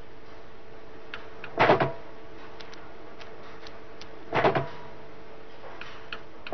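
Pigeon operant-chamber (Skinner box) apparatus: a steady electrical hum with scattered faint clicks, and three loud clattering clunks about two and a half seconds apart, the food magazine working to deliver the pigeon's reward.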